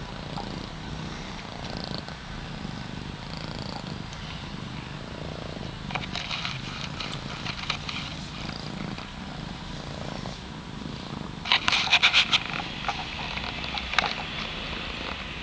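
Thai cats purring steadily in a low, continuous rumble. Short bursts of crackly clicks and rustling come in about six seconds in and again around twelve seconds.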